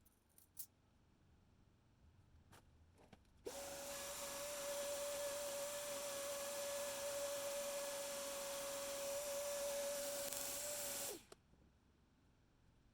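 Air blowing hard to clear dust from a dust collector's filter: a loud rushing hiss with a steady whistle, starting abruptly about three and a half seconds in and cutting off sharply some seven seconds later. A couple of faint clicks come before it.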